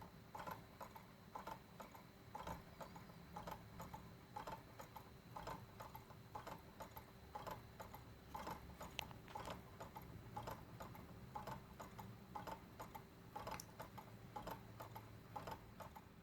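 Kit-Cat Klock's battery-driven pendulum movement ticking faintly and evenly, about two ticks a second, as the cat's tail and eyes swing.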